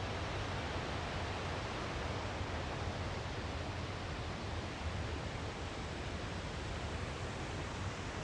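Waterfall on the Tygart Valley River rushing steadily, an even, unbroken roar of falling water.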